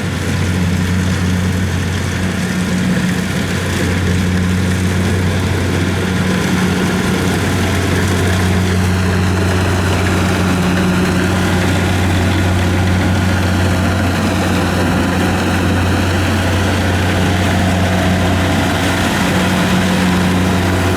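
Kubota DC-70 combine harvester's diesel engine running steadily while it cuts rice. A faint high whine dips and recovers twice in the middle.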